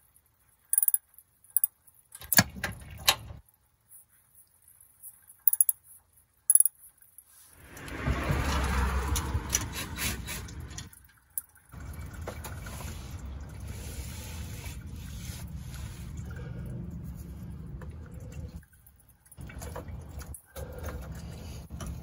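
Hand-tool work on a truck's frame: a few sharp metallic clicks of a socket on the fuel pump mounting nuts. About eight seconds in comes a loud rushing noise lasting some three seconds, then a steady background noise.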